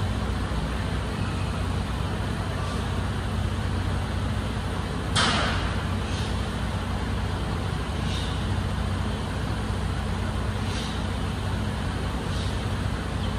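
Garbage truck engine idling with a steady low hum; about five seconds in, a single short, loud hiss of released compressed air from the truck's air brake system.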